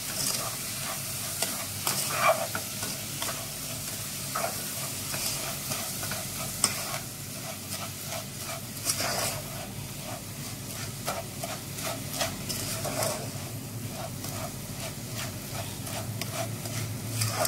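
Butter-roasted vermicelli (semiya) being stirred and mixed with sweetened condensed milk in a pan: irregular scraping strokes over a sizzle, with one sharper knock about six and a half seconds in.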